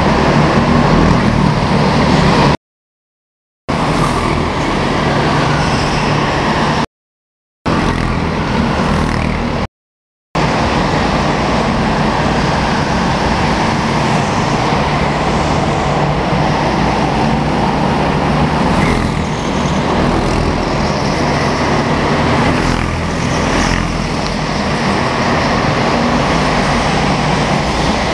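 Go-kart engine noise: Honda 200 cc single-cylinder four-stroke kart engines running at speed, steady and loud. The sound cuts out completely three times, briefly, in the first ten seconds.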